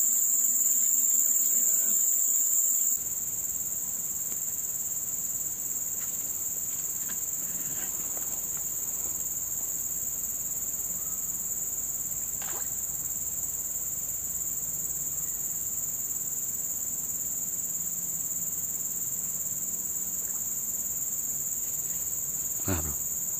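Steady, high-pitched drone of a chorus of insects, which drops a little in level about three seconds in.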